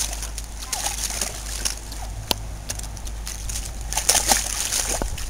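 A dog wading through a shallow, rocky stream, its feet splashing and sloshing the water in irregular bursts.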